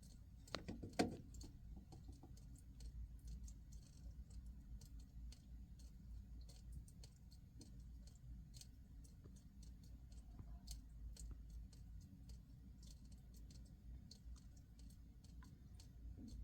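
Faint water drops ticking onto the floor again and again at uneven intervals over a low steady hum, with one louder knock about a second in.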